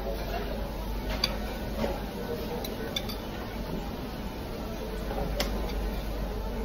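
Metal fork and spoon clinking and scraping against ceramic plates while scooping up food: a handful of sharp clinks, the loudest about five seconds in, over a low steady hum.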